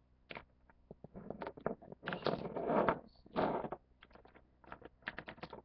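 Rustling and scattered light clicks as objects are handled close to the microphone, loudest in two bursts of rustling a little past the middle.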